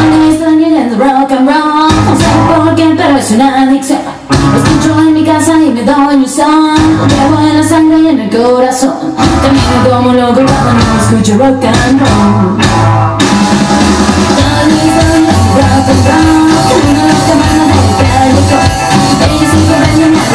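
Spanish rockabilly record playing: rock and roll with singing and guitar over a steady beat, the singing giving way to an instrumental stretch about halfway through.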